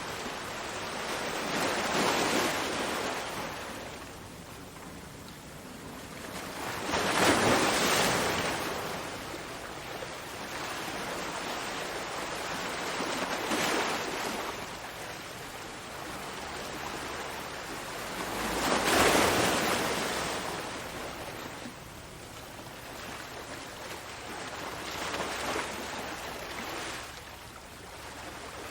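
Ocean waves breaking on a shore, a steady wash of surf that swells with each wave about every five or six seconds; five surges, the second and fourth the loudest.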